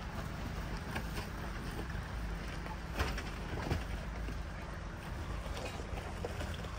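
4x4 off-roader driving slowly down a rough track: steady low engine rumble with sharp knocks and rattles from bumps, the loudest about three seconds in.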